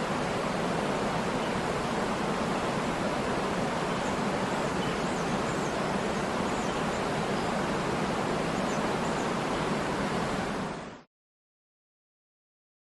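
Waterfall: steady rushing water with a few faint high chirps in the middle. It fades out quickly about eleven seconds in, and total silence follows.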